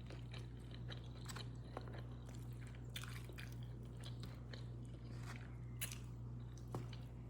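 Close-up eating sounds: chewing and biting into sauced hot wings, with scattered soft crunches and mouth clicks, over a steady low hum.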